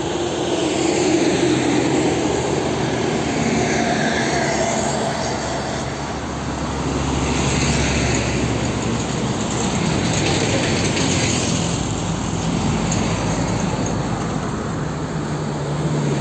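A string of heavy diesel trucks passing close by one after another, engine drone and tyre noise swelling as each goes past. The loudest passes come about a second in and again around eight and eleven seconds in, one of them a Hino cab-over truck.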